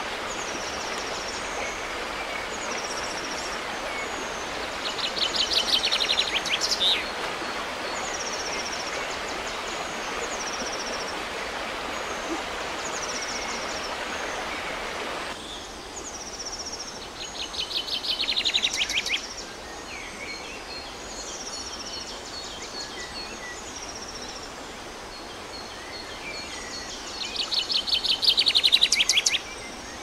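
River water running over stones, with birds singing: a short high call repeats about once a second, and a louder rapid trill comes three times. The water sound drops to a quieter level about halfway through.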